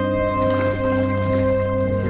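Background music of sustained, held chords.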